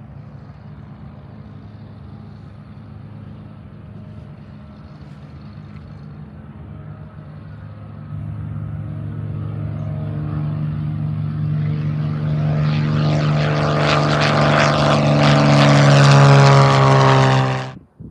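Small propeller plane's engine at take-off power, a steady-pitched drone that grows louder from about halfway through and is loudest near the end, then cuts off suddenly.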